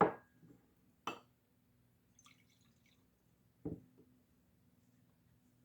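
Three short, sharp knocks or clinks of household things handled in a quiet room: one at the start, one about a second in and one nearly four seconds in, the first ringing briefly. A faint steady low hum runs underneath.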